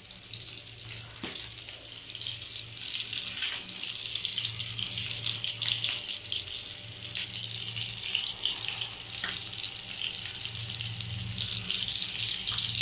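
Fish sizzling in oil on a flat iron griddle: a steady hiss with scattered small crackles, the fish nearly done frying. A low steady hum runs underneath.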